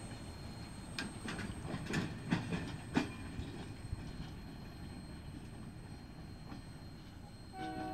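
Freight train cars rolling away on jointed rail: sharp wheel clicks and knocks over the rail joints in the first few seconds, then a dwindling rumble as the train recedes. Near the end, a held multi-pitched tone begins.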